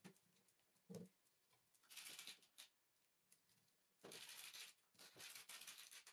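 Faint handling sounds: a soft knock about a second in, then short spells of rustling and light clatter of small metal nuts and washers being picked from a plastic parts organizer.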